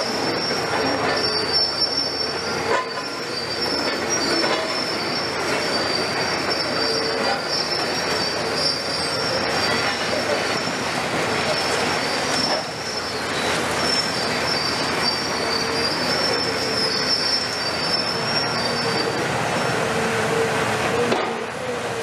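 Cat 340F UHD demolition excavator with its Cat C9.3 diesel and hydraulics under load, its crusher jaw biting into concrete. A steady mechanical din with grinding and crumbling, over which a high metallic squeal keeps coming and going.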